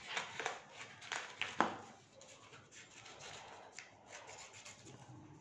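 Small scissors snipping through coloured craft paper: several short sharp snips in the first second and a half, then only faint paper-handling sounds.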